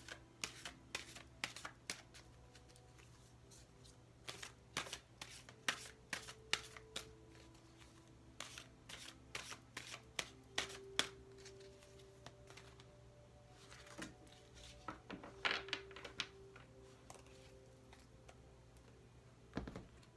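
Tarot deck being shuffled by hand: irregular quick rasps and slaps of the cards, busiest about four to seven seconds in and again around fifteen seconds, over soft background music with long held tones.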